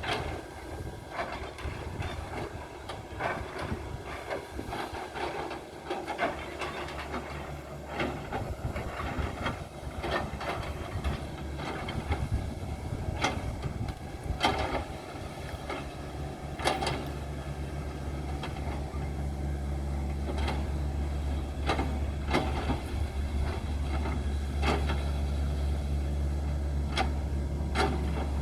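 Excavator's diesel engine running steadily, its low drone growing stronger about halfway through, with irregular metal clanks and knocks from the machine working.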